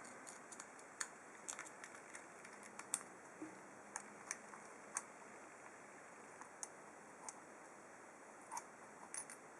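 Faint, irregular light clicks and ticks of a padlock and its small metal parts being handled during disassembly.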